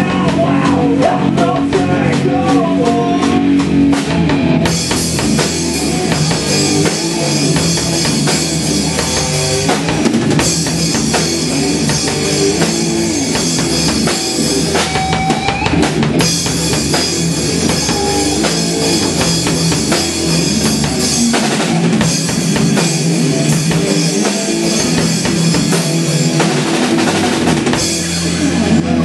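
Live rock band playing: electric guitars and bass guitar over a busy drum kit. A loud cymbal wash comes in about five seconds in and carries on, with a few short breaks.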